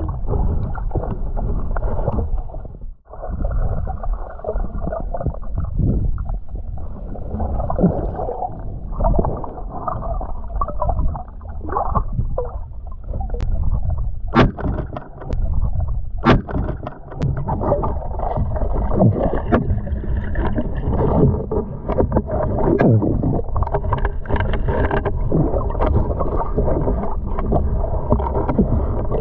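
Muffled, rumbling water noise with sloshing and bubbling, heard through an action camera's sealed waterproof housing during a spearfishing swim. It drops out briefly about three seconds in, and a few sharp clicks come midway.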